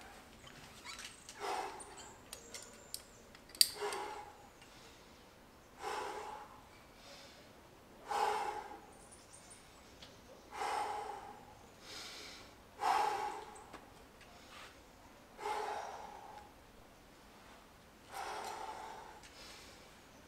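A rock climber breathing out hard on an overhanging route, one forceful exhalation about every two to two and a half seconds. A few light clicks and one sharp click come about three and a half seconds in.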